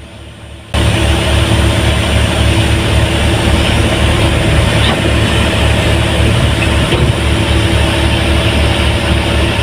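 Heavy diesel engine running steadily with a low, pulsing rumble, cutting in abruptly about a second in.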